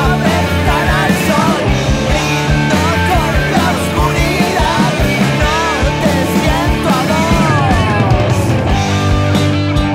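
Rock band playing live with electric guitars, bass and drum kit, and a man singing over them. About eight and a half seconds in, the singing stops and the band plays on.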